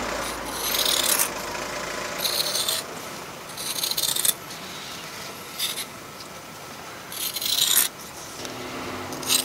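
Scissors cutting woven fiberglass cloth into strips: about six rasping cuts, each up to a second long, with short pauses between.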